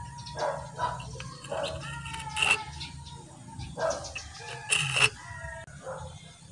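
A dog barking repeatedly, about six short barks, the loudest two about two and a half seconds in and near five seconds.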